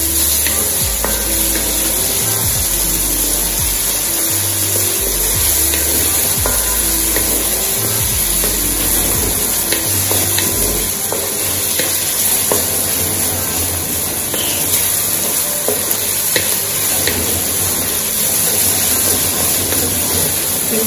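Onions, tomatoes and scallion sizzling as they sauté in an aluminium pot, stirred with a wooden spoon that scrapes and taps against the pot.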